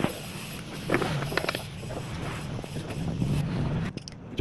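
Mechanical clicks and rattling from hands-on work on a starter motor, over a steady low hum.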